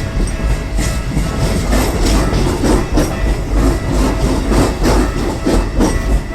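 Keikyu electric commuter train running past, a steady rumble with its wheels clacking over rail joints in a quick run of beats that grows denser about two seconds in.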